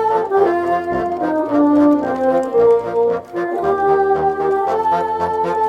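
Ensemble of bassoons playing a Christmas carol in harmony: several held notes sounding together and moving from chord to chord.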